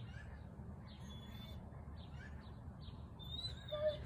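Small birds chirping in short, repeated high calls, with a clearer whistled note and a brief lower call near the end, over a steady low background rumble.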